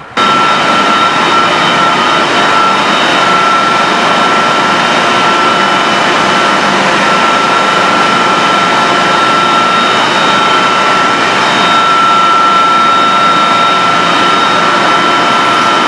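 Boiler-room machinery running loud and steady: electric motors and centrifugal pumps, giving a dense roar with a steady high whine over it. It starts suddenly and holds level without a break.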